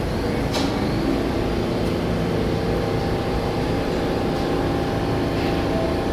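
New York City subway train moving through the station, a steady rumble with a faint motor whine and a sharp click about half a second in.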